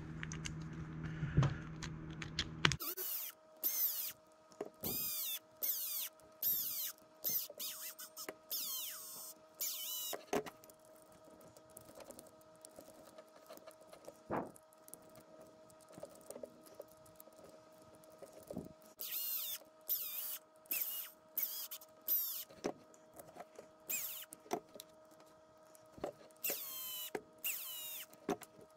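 Cordless electric screwdriver running in many short bursts, its motor whine rising and falling with each screw, as small screws are driven into the plastic portal gearbox housings of an RC crawler axle. Sharp clicks of small parts are heard between bursts.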